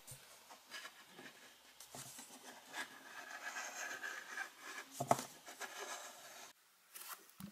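Faint handling noise: soft clicks and rustling from hands moving around a small LEGO model, with a sharper click about five seconds in.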